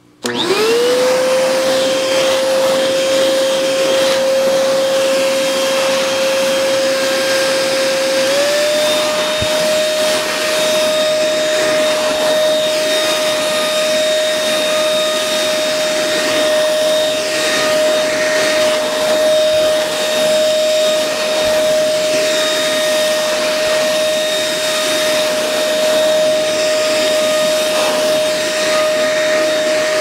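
Housen handheld bedding vacuum cleaner switched on: the motor spins up within a second into a steady whine over a rush of air. About eight seconds in, the pitch steps up a little and then holds steady.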